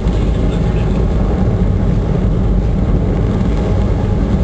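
Five Saturn V first-stage F-1 rocket engines firing together in a static test: a loud, steady, deep roar with no break, heard as played back over a presentation's speakers.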